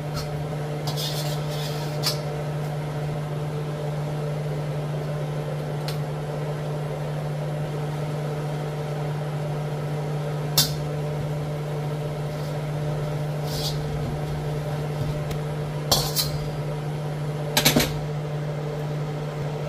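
Kitchen exhaust fan running with a steady hum, broken by a few short metal clinks and scrapes of tongs against a metal wok, the loudest about ten seconds in and again near the end.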